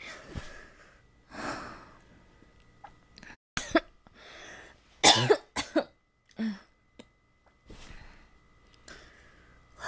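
A girl coughing with a cold: soft, breathy coughs and breaths, with a cluster of sharper, louder coughs in the middle, the loudest about five seconds in.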